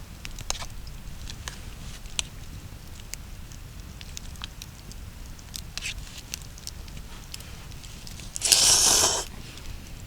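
Wood campfire crackling, with irregular sharp pops over a low steady rumble. A short, loud rush of noise lasting under a second comes near the end.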